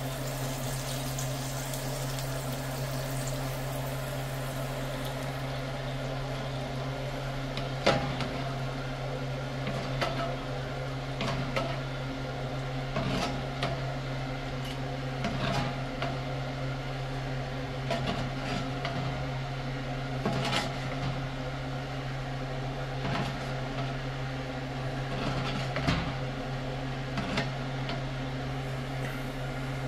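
Steady low hum of the oven running, with a spoon knocking and scraping against the metal roasting pan every couple of seconds while the pork ribs are basted in their juices.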